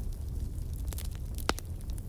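Wood fire crackling, with a steady low rumble and scattered sharp pops, the loudest about one and a half seconds in.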